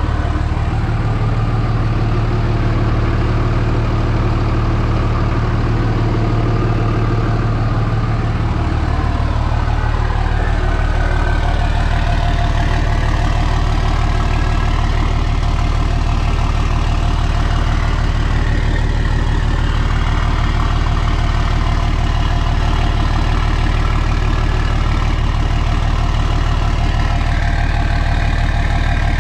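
2003 Dodge Ram 2500's 5.9L Cummins inline-six common-rail turbo diesel idling steadily. Its low tone shifts about nine seconds in, then holds even.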